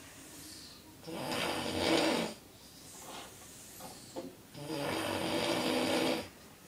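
A man snoring loudly: two long snores about three and a half seconds apart, each lasting a little over a second, with quieter breathing between them.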